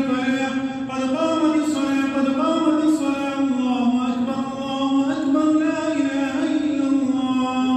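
A man's voice chanting a slow, unaccompanied melody in long, held notes that glide gently up and down.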